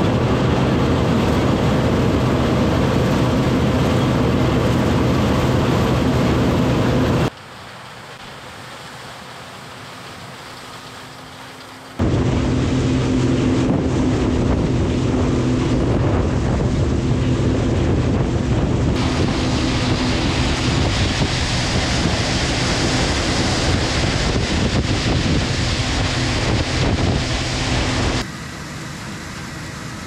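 Harvest machinery engines running steadily in a soybean field, a steady engine drone under heavy rumbling noise. The sound cuts to a quieter hum about seven seconds in, comes back loud at about twelve seconds, and drops again near the end.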